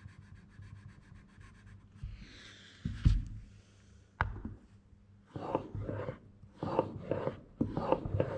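Steel plane blade rubbed back and forth flat on a wet fine-grit waterstone, about two strokes a second in the second half, taking the burr off the back of the freshly sharpened edge. Before that, a loud thump about three seconds in and a sharp click just after four seconds as the blade and its honing guide are handled on the stone.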